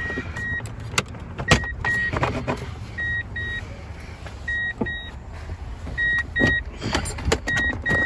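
A 2002 Toyota Tundra's dashboard warning chime beeping in quick pairs about every second and a half, as it does with the key left in the ignition and the driver's door open. Sharp plastic clicks and knocks from the lower dash cover being pried down over it.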